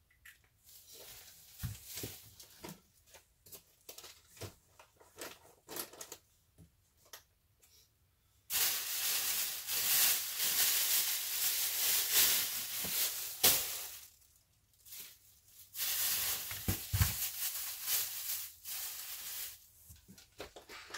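Thin plastic bag rustling and crinkling as it is handled, in two long loud stretches, after several seconds of lighter rustling and small knocks of things being packed into a cardboard box.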